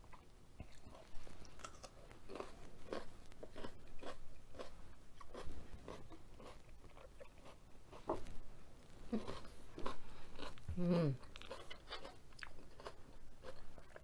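Close-miked chewing and crunching of mouthfuls of food, with short sharp crackles throughout. About eleven seconds in there is a brief falling hum, an appreciative "mmm".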